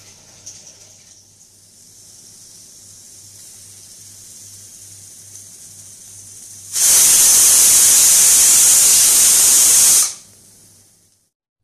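Aluminium stovetop pressure cooker on a gas burner at full flame: a faint steady hiss of escaping steam, then about seven seconds in it whistles, a loud rush of steam lasting about three seconds that stops abruptly. This is the single full-flame whistle that marks the cooker reaching pressure.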